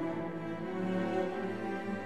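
A cello ensemble playing in harmony: many cellos bowing sustained notes together, the chord shifting about halfway through.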